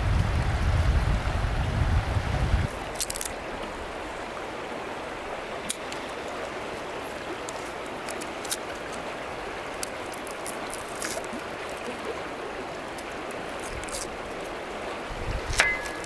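A river flowing with a steady rush, and small clicks of a paring knife working an onion. Near the end a cleaver chops onto a wooden cutting board with a short metallic ring. For the first couple of seconds a louder low rumble lies under it and cuts off abruptly.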